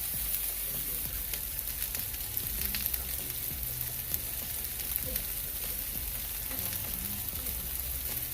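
Turkey meatballs frying in olive oil in a pan over medium-high heat: a steady sizzling hiss with scattered crackles and pops.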